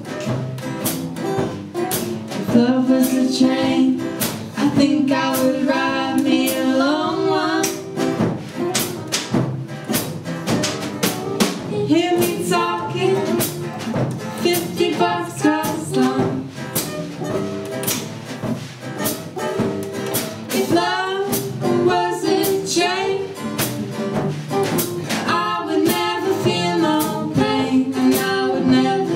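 A small live band plays a song: a drum kit keeps a steady beat under an acoustic guitar, an acoustic bass guitar and a second guitar, and a female voice sings held, wavering lines in several passages.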